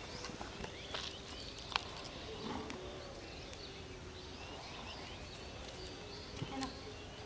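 Faint outdoor ambience: a buzzing insect hums steadily, with scattered short high chirps and a few sharp clicks, the loudest about two seconds in.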